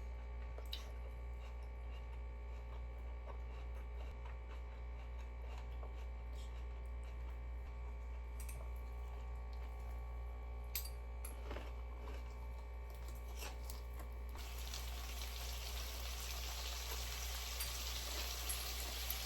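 Low steady hum with a few light clicks and knocks. About fourteen seconds in, a tap is turned on and water runs steadily.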